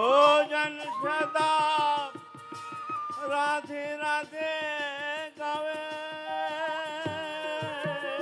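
Devotional kirtan music: a gliding, ornamented melodic lead over a steady percussion beat.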